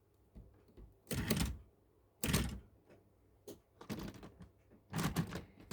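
Tri-ang model railway train moving in fits and starts on the track: a few short bursts of clattering with quiet stalls between them. It is losing and picking up power, which the owner puts down to the locomotive.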